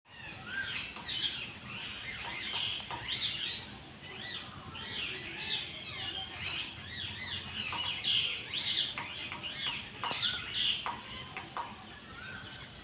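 House sparrows chirping busily, many short overlapping cheeps in quick succession.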